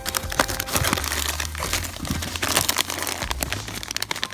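Plastic snack packaging crinkling as it is handled, with a dense run of irregular crackles.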